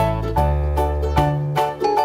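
Background music: light, bouncy instrumental with plucked and mallet-like notes over a steady bass, about two to three notes a second.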